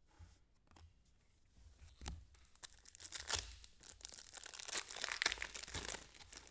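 Trading cards and their plastic or foil packaging being handled: crinkling and rustling with small clicks, busier and louder in the second half.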